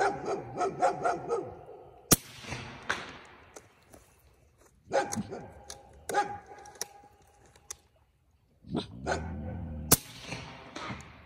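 Two shots from a suppressed .357-calibre Pitbull air rifle, sharp cracks about eight seconds apart, the first about two seconds in, each followed by a brief echo. Between the shots a dog barks and whines in short bursts.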